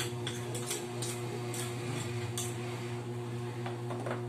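A spoon clinking and tapping against a small bowl and a stainless steel pot while salt is added to batter: a string of short light clicks, most in the first second and a half and a few more near the end, over a steady low hum.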